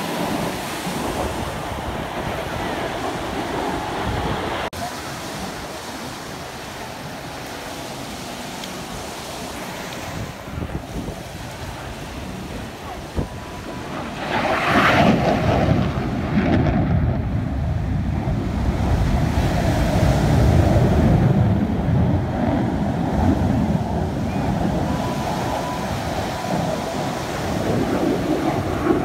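Wind rumbling on the microphone over the distant roar of a fighter jet. The noise swells and grows deeper about halfway through as the single jet comes in low.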